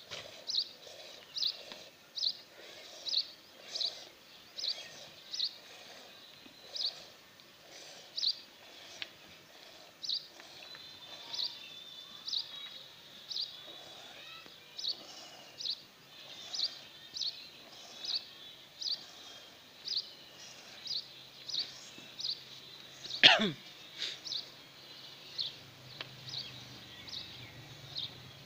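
Milk squirting in short hissing jets into a small steel pot as a cow is milked by hand, about one squirt a second. A single loud, sharp sound with a falling pitch cuts in about 23 seconds in.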